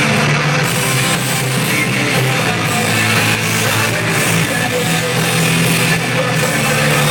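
Live alternative rock band playing loud through a concert PA: distorted electric guitars, bass and drum kit, without vocals.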